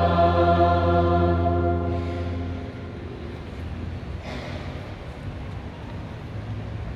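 The last held note of a sung responsorial psalm, with a steady low accompanying note beneath it, dying away about two and a half seconds in; after it only the quiet, reverberant murmur of the church.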